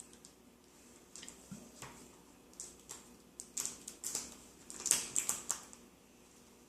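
Scattered light clicks and taps of a small screwdriver, screws and phone parts being handled, thickest from about three and a half to five and a half seconds in.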